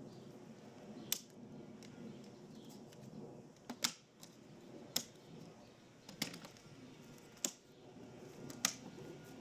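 Sharp clicks or taps, six of them spaced about a second apart, over a faint low background murmur.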